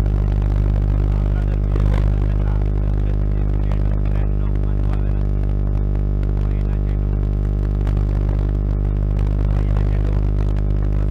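Loud steady low hum, several pitched layers held unchanged, with faint voices behind it.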